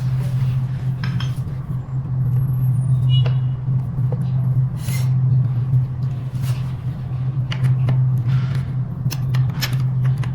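Scattered metallic clicks and taps of tools working on an electric scooter's disc brake caliper as it is positioned, over a steady low hum.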